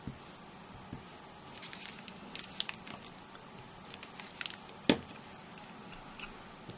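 Quiet handling of card and glue: scattered soft scratchy ticks and rustles as a little glue is dabbed onto small card pieces, with one sharp tap about five seconds in.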